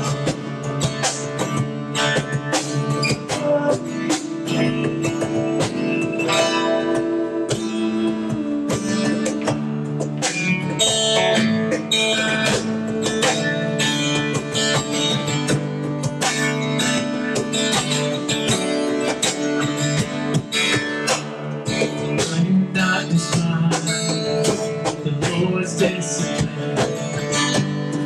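Acoustic guitar strummed steadily in an instrumental passage, without singing.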